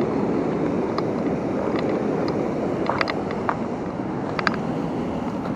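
Steady rushing of river water pouring over a low-head dam, mixed with wind on the microphone, with a few faint short clicks.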